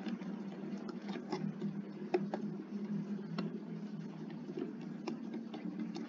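Computer keyboard keys clicking at an uneven pace of a few strokes a second as someone types, over a steady low hum.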